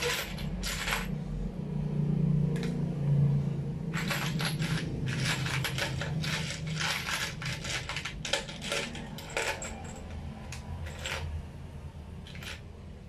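Metal motorcycle bolts dropped one after another into a container, clinking and rattling against each other as they go in to soak in an acid cleaner. The clinks come thickest from about four seconds in, over a low steady hum.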